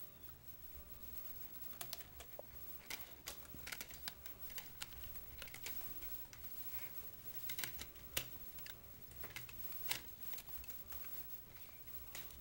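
Cats' paws and claws tapping and scratching against a sliding glass door: irregular light clicks, a few at a time, with the sharpest taps in the second half.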